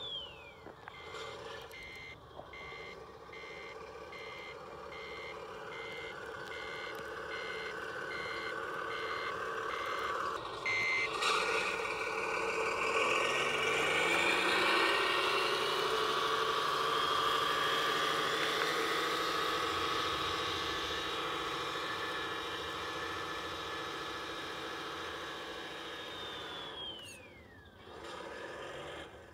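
RC scale truck's sound module: a reversing beeper repeating about twice a second for roughly the first ten seconds, then a simulated truck engine rising in pitch and running loud, ending with a whine that falls in pitch near the end.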